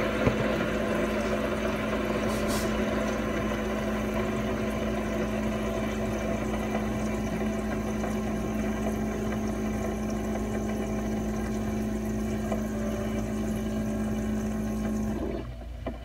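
Keurig single-serve coffee maker's water pump humming steadily with a watery hiss as it pushes water through to brew a cup. It cuts off abruptly about fifteen seconds in as the brew ends. A small knock sounds just after the start.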